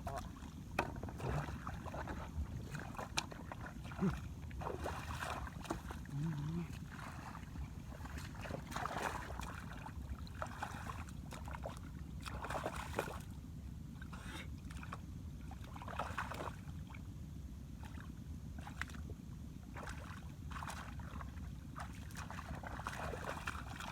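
Irregular splashing and sloshing in shallow water from fish being caught by hand, with short sharp splashes scattered throughout over a steady low rumble of wind on the microphone.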